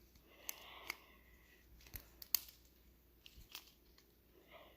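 Rubik's Cube being twisted by hand: a few sharp, irregular plastic clicks as its layers are turned, the loudest a little past two seconds in.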